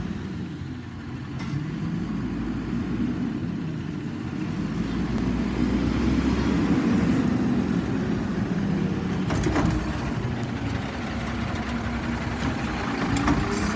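Automated side-loading garbage truck's engine running as it drives up the street, a steady low rumble that grows louder as the truck comes near.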